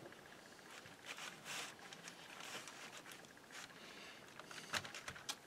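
Faint rustling and handling noises from hands working pie crust dough into a foil-lined pan and moving plastic wrap, with a couple of sharp ticks near the end.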